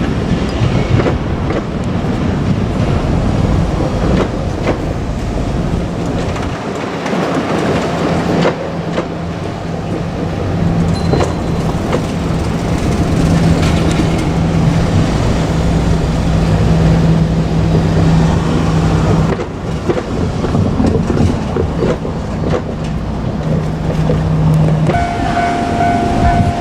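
JR Kyushu 817 series electric multiple unit (two sets coupled) running on the line: a continuous wash of wheel-on-rail noise with a low steady electric hum. About a second before the end a steady high tone with overtones starts.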